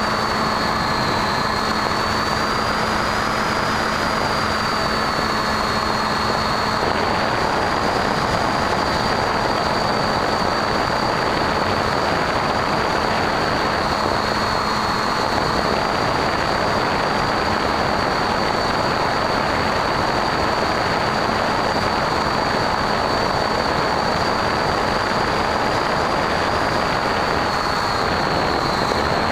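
Bixler V1 foam model plane's brushless electric motor and pusher propeller running steadily, heard from on board, with a high whine that wavers slightly in pitch over a constant rush of wind.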